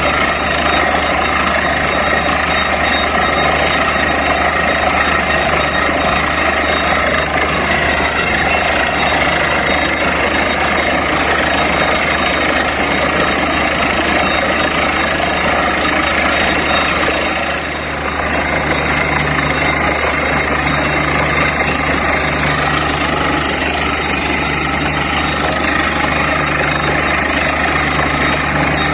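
Borewell drilling rig running steadily, a loud continuous machine din over a low engine hum, dipping briefly a little over halfway through.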